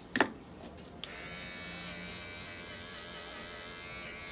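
A sharp knock, then a small electric hair clipper switched on about a second later and running with a steady buzz.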